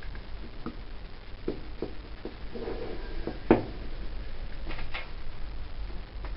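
Scattered small clicks and taps of a black plastic cover being fitted by hand onto the aluminium body of a 1993 Evinrude 4 hp outboard carburetor, with one sharp, louder click about three and a half seconds in.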